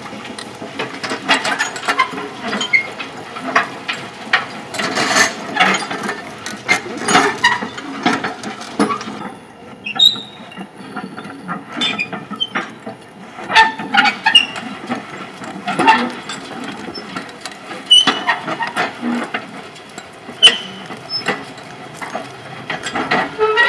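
Horse-drawn metal packer roller clanking and rattling as it rolls over the tilled, freshly sown soil: irregular metallic knocks and clicks from the drum and its frame. The clatter eases off for a few seconds about nine seconds in.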